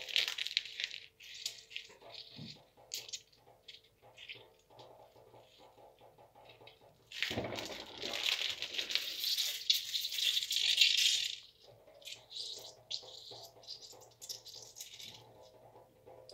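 Hands squeezing a plastic packet of curd cheese, the wrapping crinkling as excess whey is pressed out and splashes into a stainless steel sink. About seven seconds in, a louder stretch of splashing lasts some four seconds as the whey runs out in a stream.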